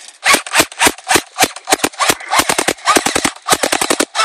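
Battery-powered electric airsoft gun firing: single shots about three to four a second at first, then short quick bursts, then a fast full-auto string near the end.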